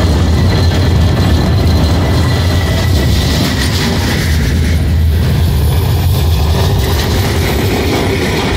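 České dráhy passenger train (locomotive and coaches) passing close by at speed: a loud, steady rumble of wheels on rail. A faint high whine sounds in the first few seconds and fades out.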